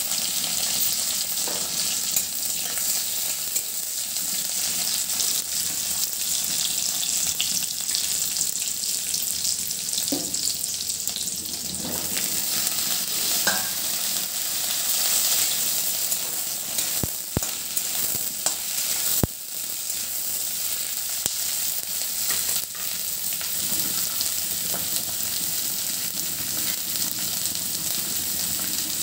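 Chopped onion and cumin sizzling steadily in hot oil in an iron kadai, then eggplant pieces frying in it, stirred with a metal spatula. A few sharp clicks of the spatula against the pan come about two-thirds of the way through.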